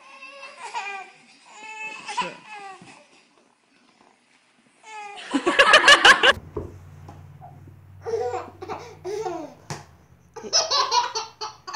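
Babies laughing in repeated bursts of giggles and belly laughs with short pauses between them. The loudest burst comes about halfway through.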